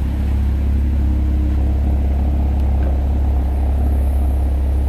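2007 Porsche Cayman S's 3.4-litre flat-six idling steadily as it warms up just after starting.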